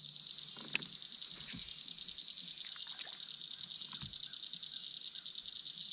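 A steady chorus of insects, a high, fast-pulsing trill, with a few faint clicks.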